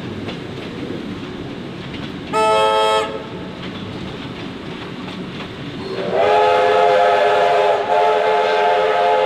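Train rolling along with a steady rumble of wheels and carriage. About two seconds in, a short whistle blast sounds, then from about six seconds a long whistle that slides up at the start and holds several notes together.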